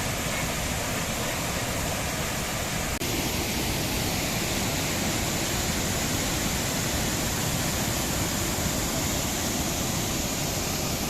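Monsoon-swollen waterfall: a steady, even rush of falling water.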